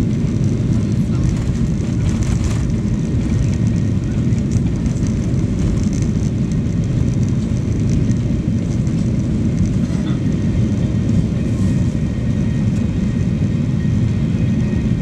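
Boeing 737 jet engines at takeoff thrust, with the rumble of the takeoff roll, heard from inside the cabin: a loud, steady, deep rumble that carries on unchanged as the plane lifts off.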